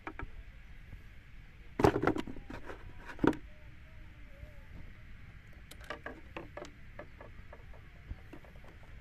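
A freshly caught fish flapping inside a plastic bucket, slapping and knocking against the sides: a loud burst of knocks about two seconds in, another a second later, then a run of lighter taps.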